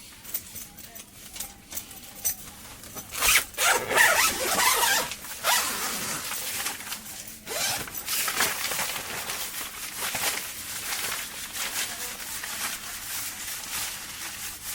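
A zipper pulled repeatedly in rasping strokes, mixed with rustling, starting about three seconds in.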